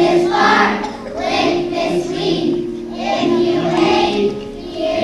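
Music with a group of children singing over an accompaniment.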